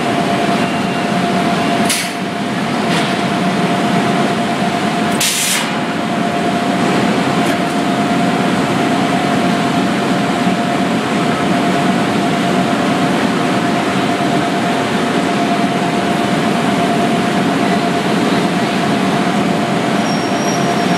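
Cotton bale press machinery running with a steady mechanical drone and a constant whine, broken by two short hisses about two and five seconds in.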